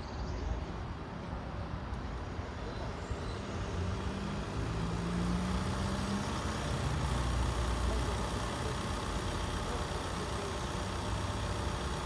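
Low, steady rumble of vehicle engines running, with one engine note rising for a couple of seconds about four seconds in, growing a little louder after that.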